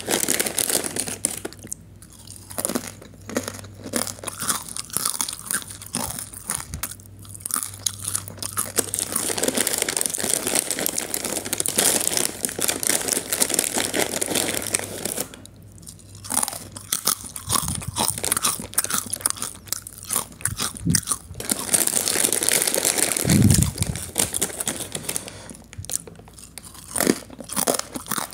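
Close-up crunching and chewing of crisp potato chips, bite after bite in bouts with short pauses between them.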